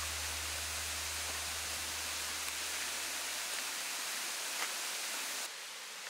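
Steady rushing hiss of forest ambience, with the low notes of background music fading out during the first few seconds. The hiss drops away suddenly about five and a half seconds in.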